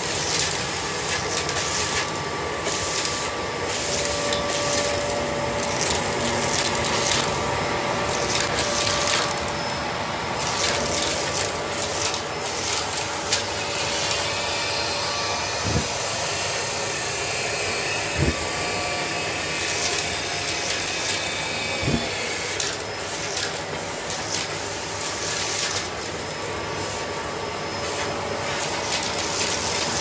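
Bosch BGS21X320 bagless canister vacuum cleaner running steadily with a whine, small plastic beads clicking and rattling as they are sucked up the wand from a laminate floor. A few sharper knocks come around the middle.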